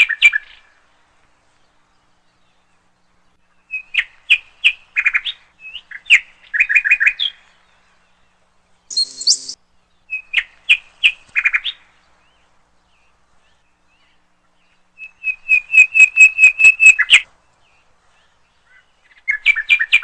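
A small bird chirps in short bursts of rapid repeated notes, with quiet pauses between phrases. One brief higher call comes in the middle, and the longest, loudest run of even notes comes a few seconds before the end.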